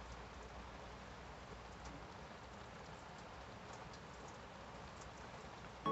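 Faint steady hiss of room tone, with a few very faint light ticks.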